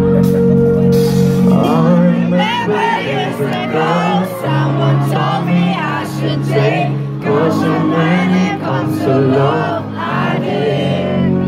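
Acoustic guitar strummed in sustained chords, with a male voice starting to sing over it about a second and a half in; a solo live performance.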